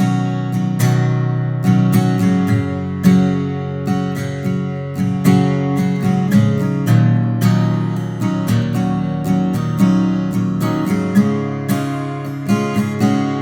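Martin 00-28 Modern Deluxe, a small-bodied rosewood-and-spruce acoustic guitar, being played: a run of picked notes and chords, several attacks a second, each ringing out, miked with no EQ or processing.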